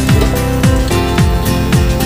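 Background music with a steady beat and a deep kick drum.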